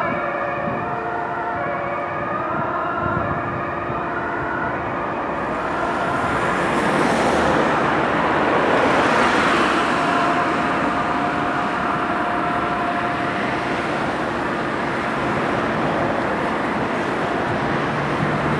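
Ambulance's two-tone siren fading out over the first couple of seconds as it drives away, then busy road traffic with cars passing close, loudest about halfway through.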